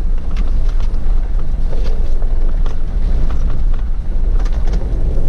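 Steady road and wind noise inside a moving vehicle's cabin, deep and heavy in the low end, with a few faint crisp crunches as apples are bitten and chewed.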